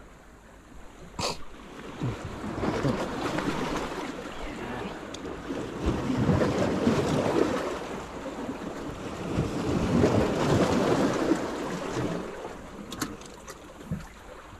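Sea waves washing against the rocks, surging and fading twice. A sharp click sounds about a second in.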